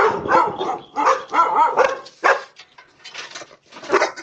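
A dog barking repeatedly in quick, separate barks, about two to three a second.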